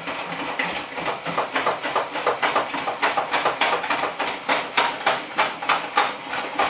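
Hand-cranked vegetable spiralizer slicing a zucchini into spiral noodles: the blade cuts through the flesh in rhythmic strokes with each turn of the crank, about three a second.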